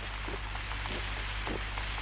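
Steady rain falling: an even hiss with scattered pattering drops.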